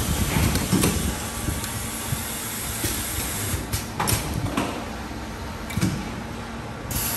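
Industrial machinery running with a steady noisy hum and a few sharp knocks, and a burst of hiss starting just before the end.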